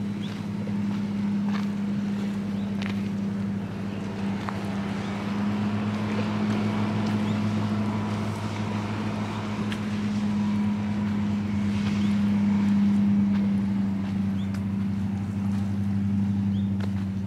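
Motorboat engine running at a steady low hum, with no change in pitch.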